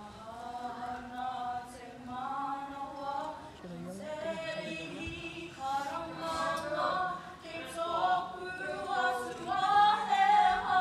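A group of young women singing a cappella with long held notes. The singing grows fuller and louder from about four seconds in.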